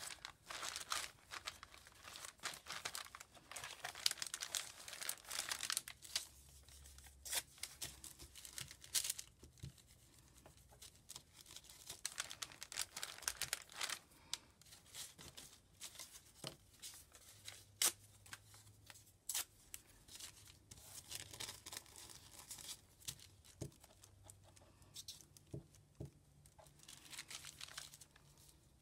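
Paper torn by hand and rustled in short, irregular spells as scraps are handled and smoothed onto notebook pages. A few sharp clicks and taps are scattered through it.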